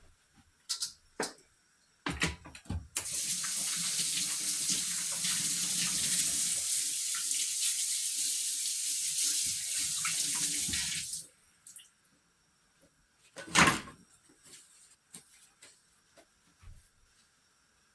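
Kitchen tap running into a sink for about eight seconds, then shut off. A few light clicks come before it, and a single knock a couple of seconds after.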